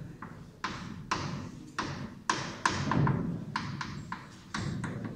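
Chalk writing on a blackboard: a series of irregular sharp taps and short scrapes as each chalk stroke is made.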